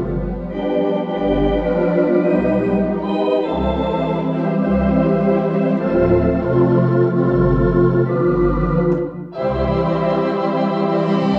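Theatre organ playing slow music in sustained chords over deep pedal bass notes, with a brief break between chords about nine seconds in.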